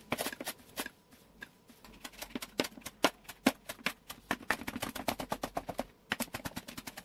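Chef's knife rapidly chopping fresh dill and parsley on a cutting board: a quick run of sharp knife taps, several a second, thinning out briefly about a second in and pausing shortly before the end.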